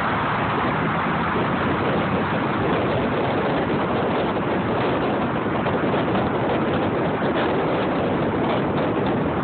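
Steady rushing road and wind noise of a car driving at speed in traffic, heard from inside the moving vehicle.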